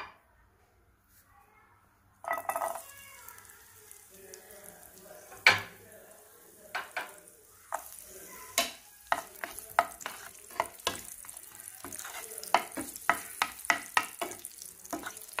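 Chopped garlic sizzling in hot oil in a non-stick frying pan, starting suddenly about two seconds in. In the second half a wooden spoon stirs it, with quick knocks and scrapes against the pan.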